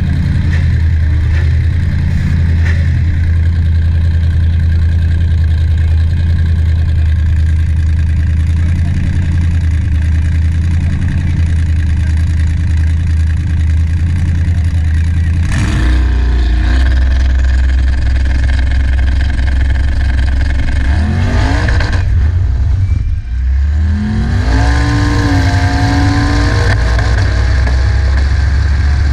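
A drag-racing donk's engine rumbling loudly at idle on the starting line, then revved in rising sweeps. About 23 s in, the sound briefly drops, then the engine pitch climbs steeply in steps as the car launches and accelerates.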